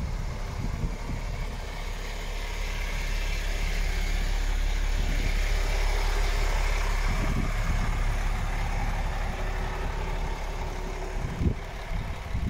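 MAN TGX 18.500 truck's diesel engine idling steadily, a little louder in the middle stretch.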